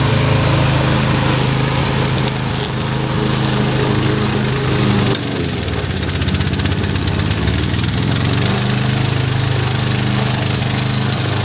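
Engine of a tracked remote-control lawn mower running steadily. About five seconds in, the sound changes abruptly: the engine note dips and climbs again, then settles back to a steady run.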